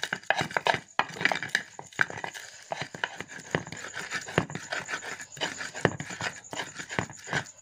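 Stone pestle (ulekan) crushing and grinding shallots, garlic and peppercorns in a cobek mortar: a quick, irregular run of knocks and gritty scrapes as the spice paste is pounded.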